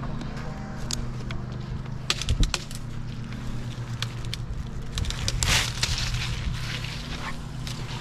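A small engine idling steadily, with scattered clicks and knocks and a brief rustle a little past halfway.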